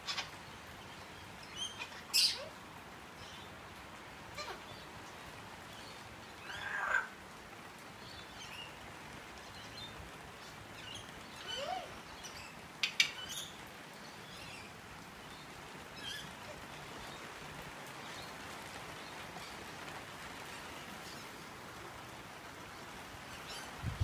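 Eclectus parrot giving short, scattered calls and chirps, about eight of them, one sliding down in pitch about seven seconds in, over a steady hiss of rain.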